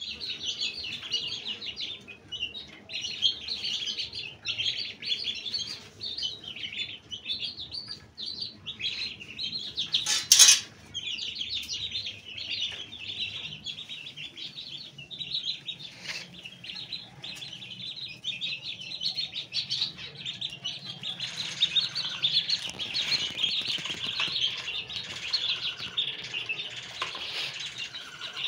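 Chicks and ducklings peeping without pause: a dense stream of high, rapid chirps. One brief loud noise stands out about ten seconds in.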